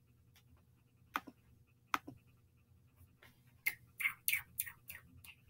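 A few faint, scattered clicks, with a quick cluster of short rustling and tapping noises about four seconds in.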